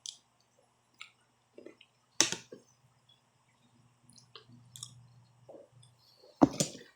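People eating a meal: quiet chewing with a scattered series of short, sharp clicks and taps. The loudest taps come about two seconds in and near the end.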